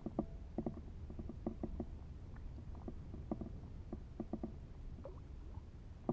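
Small irregular clicks and taps of hands handling a fishing line and its hooks, over a low steady rumble of wind and water.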